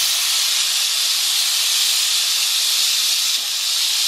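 Bissell SteamShot handheld steam cleaner jetting steam with a loud, steady hiss, pushing out a lot of water along with the steam.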